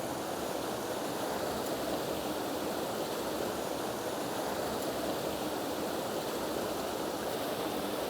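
A fast mountain river rushing steadily over its bed: a constant, even water noise.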